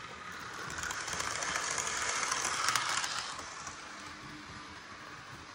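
Model train running along the track past the microphone: the sound of its motor and wheels on the rails swells, peaks about three seconds in, then fades away.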